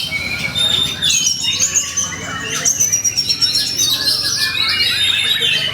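Oriental magpie-robin (kacer) singing a fast, varied, unbroken song of whistles, chirps and short trills.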